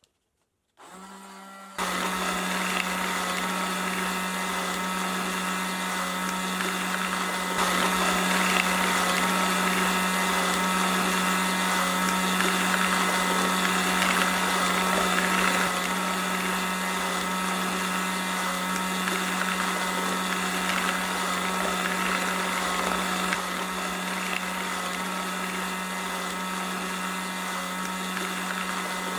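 Small DC motor of a cardboard automatic marble run machine, switched on about two seconds in and then running steadily with an even hum.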